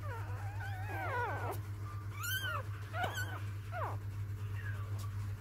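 Young puppies whimpering and squealing. Several high, wavering cries overlap in the first second or so, then single falling whines follow. A steady low hum runs underneath.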